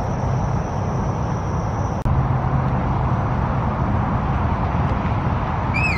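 Steady outdoor background noise: a low rumble and hiss like distant road traffic or wind, with a brief break about two seconds in and a short chirp right at the end.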